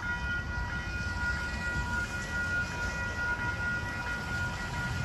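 Railroad grade-crossing warning bell ringing steadily over a low rumble.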